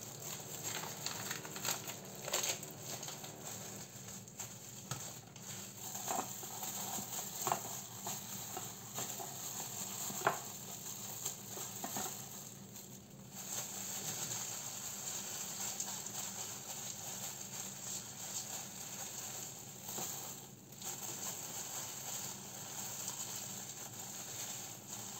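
Crinkling of disposable plastic food-prep gloves and plastic film, with scattered light taps and rustles as sushi rice is scooped from a bowl and pressed onto a nori sheet on a bamboo rolling mat, over a steady faint hiss.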